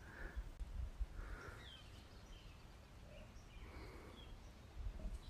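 Faint outdoor ambience: an uneven low rumble with a few short, faint bird chirps scattered through it.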